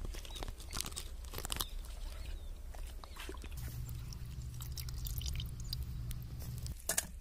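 Chopped goat intestine being squeezed and rinsed by hand in water in an iron kadai, washed clean before boiling: wet squelching and splashing with many small sharp clicks. Near the end comes one louder click.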